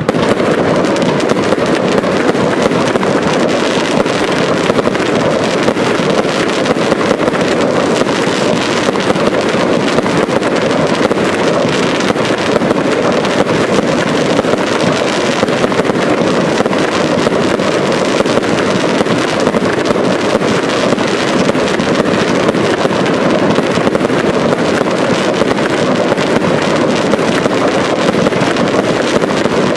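Fireworks display at full intensity: a continuous, dense rush of crackling stars and shell bursts that merges into one steady loud noise with no gaps.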